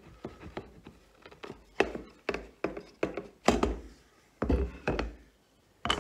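Wooden frame parts knocking and clunking as a dry-fitted mortise-and-tenon frame is handled, pulled apart and the pieces set down on a workbench: a string of irregular sharp wooden knocks, the loudest around the middle.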